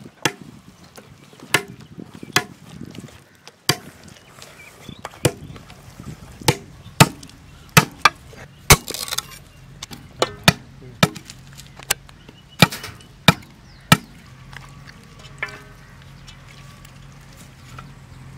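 Large chopping knife striking green bamboo stalks: a series of about seventeen sharp, irregularly spaced chops that stop about fourteen seconds in.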